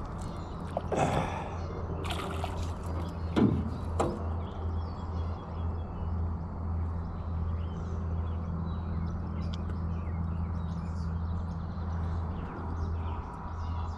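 Water splashing and trickling at the side of a small fishing boat, with a few sharp splashes in the first four seconds, over a steady low hum.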